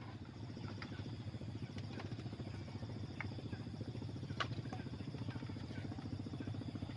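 A small engine puttering with a fast, even beat, slowly growing louder, with a few faint sharp ticks over it.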